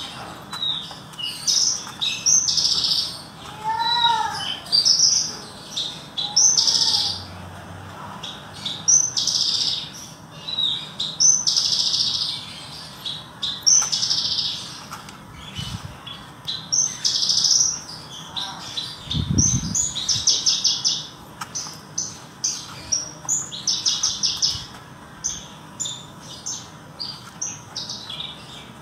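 Horsfield's bush lark (branjangan) of the parva race singing: a long run of short, high, varied phrases broken by fast rattling trills. There is a brief low thump about 19 seconds in.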